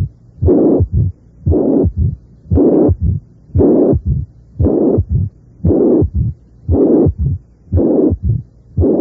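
Recorded heart sounds of mitral regurgitation at about one beat a second. Each beat has a loud systolic murmur lasting about half a second, followed by short low thuds. These are the third heart sound and a short mid-diastolic rumble that comes with it, heard without any mitral stenosis.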